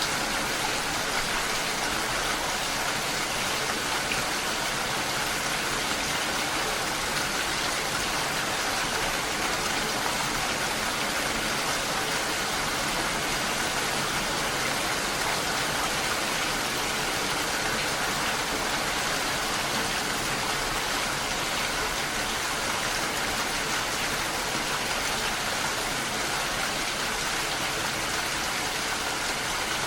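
Steady, dense rain falling on a lake's surface, an even hiss of many drops.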